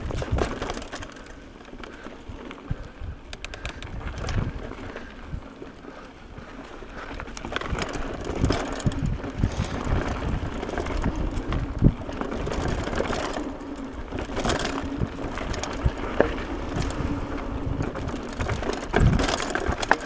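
Mountain bike rattling and knocking over a rough dirt trail, with tyres running on dirt and leaves and wind rumbling on the microphone; it gets louder and rougher about a third of the way through.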